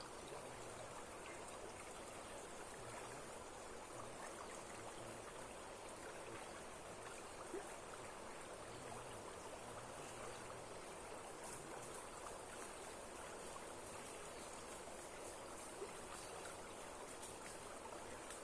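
Steady rush of waterfall water flowing strongly.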